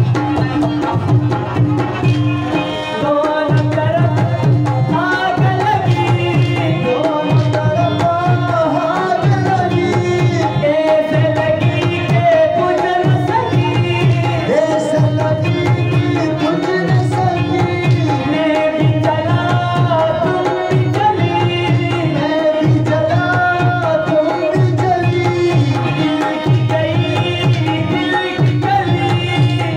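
Live qawwali: a man sings with bending, ornamented phrases over a harmonium, with a hand drum keeping a steady rhythmic beat. The voice comes in a few seconds in, over the harmonium's held notes.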